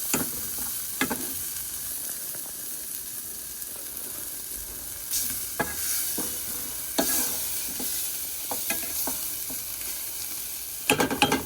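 Onions, ginger, garlic and turmeric sizzling as they fry in a pan, with a spoon now and then clicking and scraping against the pan as they are stirred.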